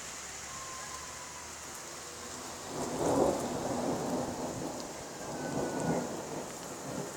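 Thunder rumbling: it builds about three seconds in and rolls on in uneven swells, over a steady hiss of rain.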